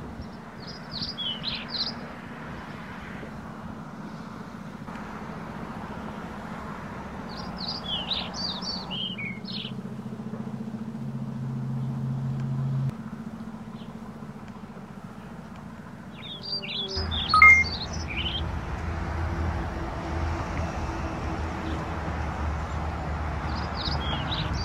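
A songbird singing short phrases of quick high chirps, four times, the third with one sharp louder note. Beneath it runs a steady background hiss and low hum whose level shifts abruptly several times.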